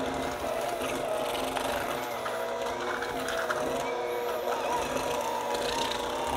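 Electric hand mixer running steadily, its beaters working stiff shortbread cookie dough in a metal bowl; the motor's whine wavers slightly in pitch under the load.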